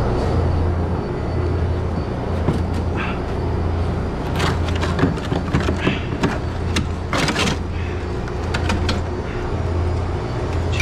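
A steady low machine hum, with a run of knocks and clatter from handling work about halfway through.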